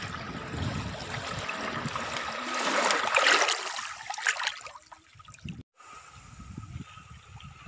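Small waves lapping and washing in shallow seawater, swelling to their loudest about three seconds in and then dying away. After a sudden break near six seconds, only faint lapping remains.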